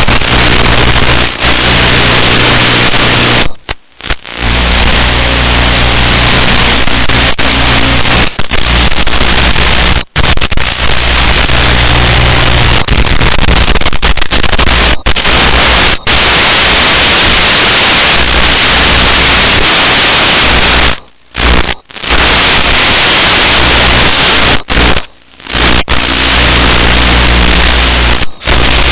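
Loud, steady static hiss with a faint low hum, cutting out briefly to silence a few times: the audio channel of an analog FPV video downlink from a micro camera-transmitter, recorded at the receiver.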